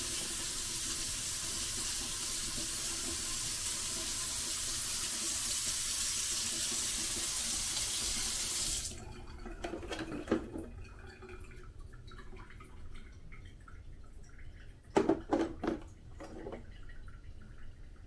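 Sink tap running steadily into the sink, shut off abruptly about halfway through. A few knocks and clatters follow: one about a second later and a quick cluster near the end.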